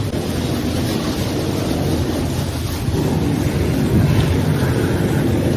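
Steady rumble of construction-site machinery running, with wind buffeting the microphone; it grows a little louder about three seconds in.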